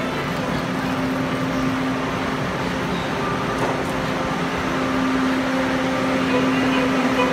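Steady hum of a metro train standing at a busy underground platform, one constant low tone over the general noise of the station, growing a little louder near the end.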